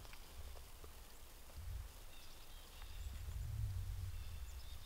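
Quiet riverside outdoor ambience: a low rumble that swells twice, with faint high bird chirps.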